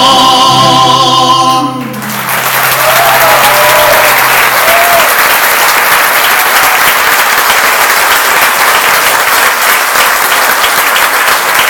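Men's voices hold the song's final sung chord, which stops about two seconds in. Then the concert audience applauds loudly and steadily.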